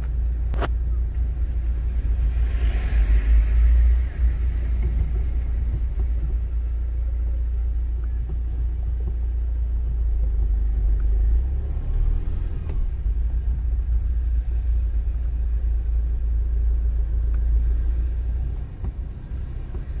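Car driving slowly, heard from inside the cabin: a steady low rumble of engine and road, with a swell of hiss about two to four seconds in.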